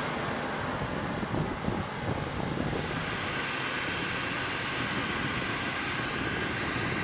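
Aircraft ground power unit running steadily on the flight line: a dense, even rushing hum with a faint high whine over it.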